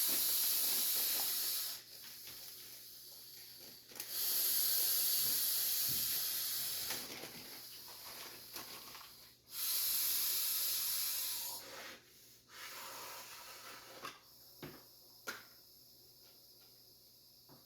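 Hard breaths through a resistance breathing trainer, air hissing through its adjustable valve: three loud hissing breaths of about two to three seconds each, with fainter breaths between and a couple of light clicks near the end.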